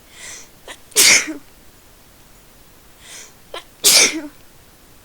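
A person sneezing twice, about three seconds apart, each sneeze preceded by a breathy in-breath and a short catching gasp.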